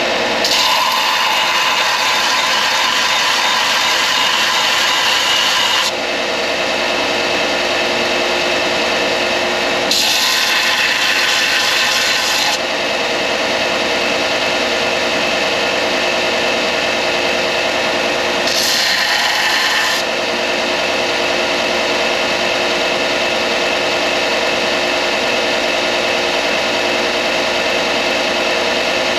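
Belt sander running steadily while the oak and deer-antler pen blank is pressed against the belt, giving three spells of louder grinding hiss: the first lasts about five seconds, then two shorter ones come about ten and eighteen seconds in.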